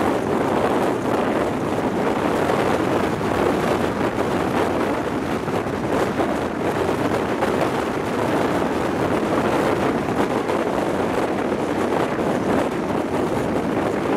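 Steady rush of wind buffeting a microphone held out of the window of an HST passenger train running at speed, blended with the train's running noise.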